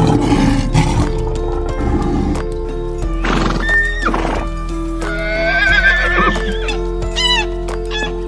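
A horse whinnying, a wavering high neigh that drops away at its end, over background music. A lion's roar trails off in the first second.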